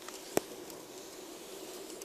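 A good rolling bearing spinning without the hum of a worn one: a faint steady tone over a light hiss. One sharp click about a third of a second in.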